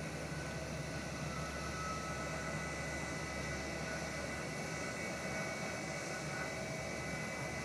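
Airbus A320 jet airliner running at idle while a tug pushes it back: a steady whine over a low hum.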